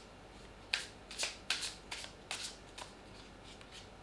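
Tarot cards being shuffled by hand: a run of about eight quick, crisp card snaps from under a second in to nearly three seconds, then a few faint ones.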